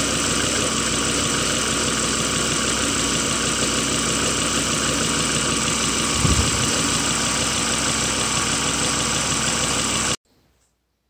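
Volvo car engine idling steadily, with a brief low thump about six seconds in; the sound cuts off suddenly near the end.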